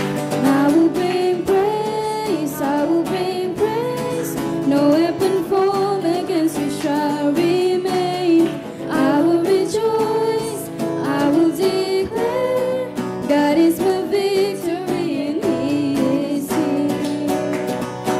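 Women singing a contemporary worship song, accompanied by a strummed acoustic guitar.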